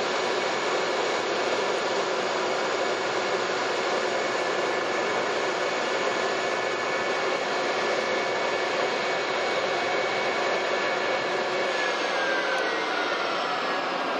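F-4EJ Phantom II's twin J79 turbojets running at ground idle: a steady jet roar with a high whine. Near the end the whine starts to fall in pitch as an engine begins to spool down at shutdown.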